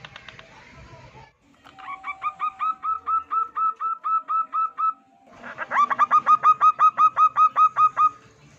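Zebra dove (perkutut) singing: two runs of quick, hooked cooing notes repeated rapidly, the second run faster and louder. A faint scratchy noise comes in the first second.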